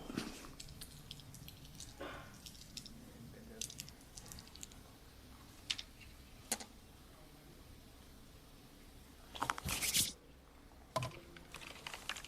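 Hands working in a head-and-neck massage: scattered short cracks and slaps, with a quick run of them about nine and a half seconds in and another about a second later.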